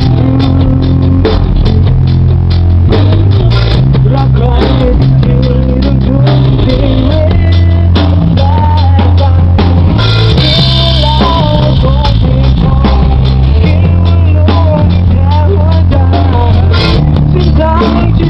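Loud band music: drum kit and bass keeping a steady beat, with guitar and a wavering melody line over it.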